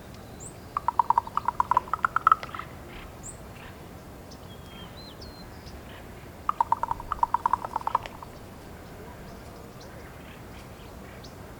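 A female raven giving two bouts of rapid knocking clicks, about ten a second. Each bout lasts one to two seconds, and the second comes about four seconds after the first. The calls are aimed at her mate.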